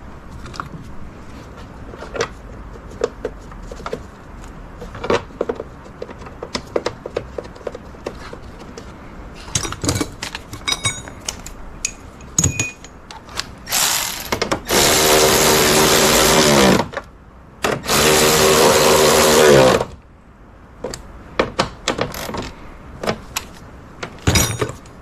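Power drill running in two bursts of about two to three seconds each, its pitch falling as it winds down at the end of each, driving in the fasteners of a tube being refitted. Scattered clicks and knocks of parts and tools being handled come before and after.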